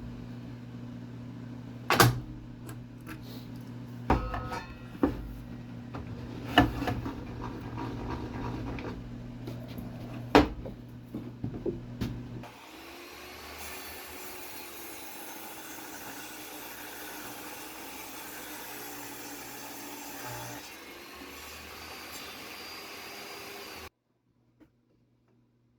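Sharp knocks and clacks of hardware and tools being handled, over a steady low hum, for about half the time. It then changes abruptly to a steady hiss with slow wavering tones, which stops shortly before the end.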